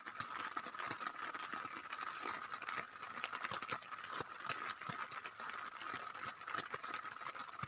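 Light rain falling, heard as irregular drips and taps, over a steady high-pitched chorus of night animals that does not let up.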